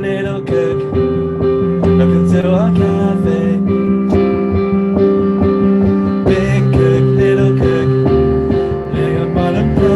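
Background music led by plucked guitar, with a steady beat.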